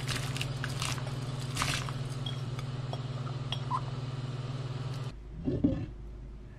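Pan of water at a rolling boil bubbling and crackling as brown rice is poured in, over a steady low hum. The sound cuts off about five seconds in, and a short knock and clatter follows as a pot lid is handled over the pan.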